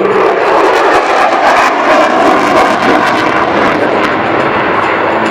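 F-16 fighter jet's engine noise, loud and steady during its display flight, easing slightly after about four seconds.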